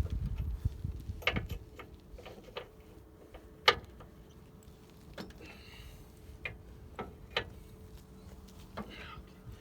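Scattered sharp metal clicks and knocks from hand tools working on the hitch bolts, a breaker bar and socket on the bolts, with one louder knock about a third of the way in.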